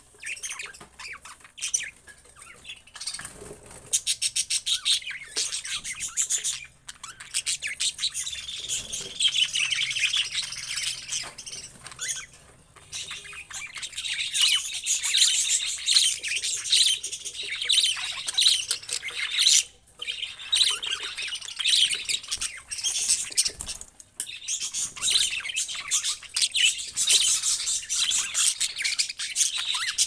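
A flock of budgerigars chattering, a dense stream of rapid high chirps and warbles with a few brief lulls.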